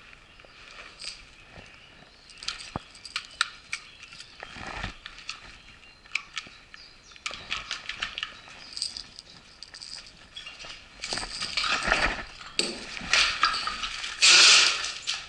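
Footsteps crunching and scraping over brick rubble and debris, with many scattered clicks and knocks. About fourteen seconds in comes a loud half-second rushing burst, the loudest sound here.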